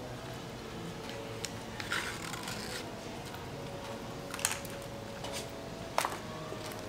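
Quiet room tone with scattered small clicks and taps from food and dishes being handled at the table during eating, the sharpest about four and a half and six seconds in.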